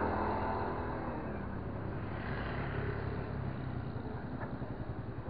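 Small motorcycle engine running slowly, with a steady low putter of exhaust pulses that becomes more distinct in the second half.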